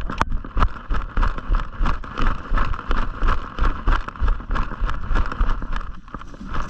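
Footsteps at a quick walk or jog heard through a body-worn camera, about three thudding steps a second, with gear jostling against the microphone.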